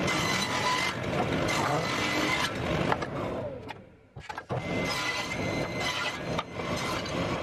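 Table saw running and cutting rabbets along the edges of a wooden frame, a steady whine under the noise of the cut. The sound drops away almost to nothing about halfway through, then the saw is heard again.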